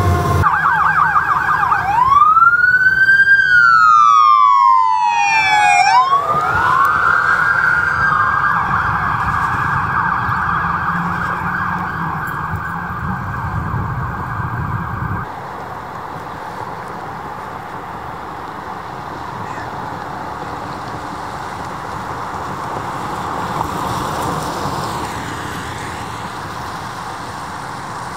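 Emergency vehicle siren wailing, its pitch sweeping slowly up and down and holding high, over the low rumble of the vehicle. About fifteen seconds in the rumble drops out and the siren carries on, fading.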